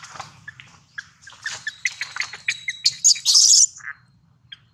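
Baby long-tailed macaque crying: a quick run of short, high squeaks, ending just after three seconds in a louder, harsh scream.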